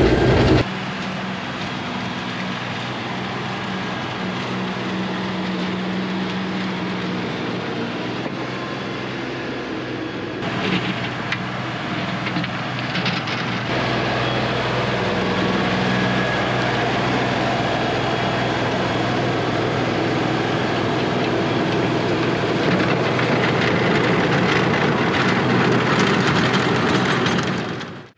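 LS compact tractor's diesel engine running steadily while it drives a Sicma PTO rototiller through the soil. The sound changes abruptly about half a second, ten and fourteen seconds in, and dips out right at the end.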